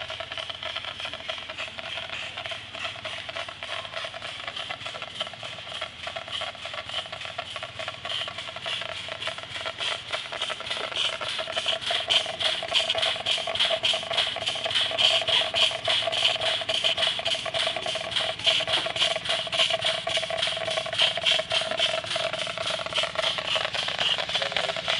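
Scale-model Case steam traction engine running under steam: an even, rapid beat of about three strokes a second with mechanical clatter over a steady whine, growing louder about halfway through as the machinery comes close.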